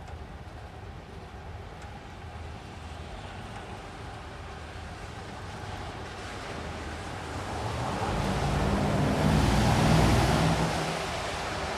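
Night ambience with light rain hissing steadily. About eight seconds in, a vehicle passes, swelling to its loudest at about ten seconds and then fading.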